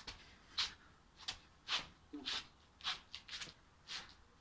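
Sneaker soles scuffing and scraping on stone paving as a person pivots round on one foot, a short faint scuff about twice a second.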